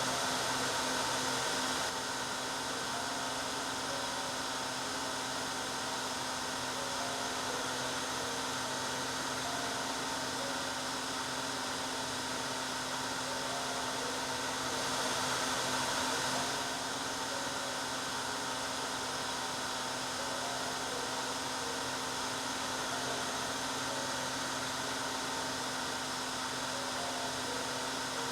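Hair dryer running steadily: a constant rush of air over a low motor hum. It swells slightly louder for a couple of seconds at the start and again about halfway through.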